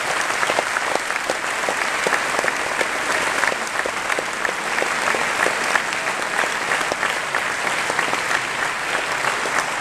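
Audience applauding, a steady dense clapping that holds throughout.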